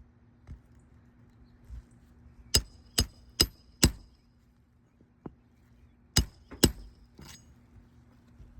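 Hammer driving roofing nails into an asphalt shingle: four quick blows, then two more a few seconds later, each with a short metallic ring.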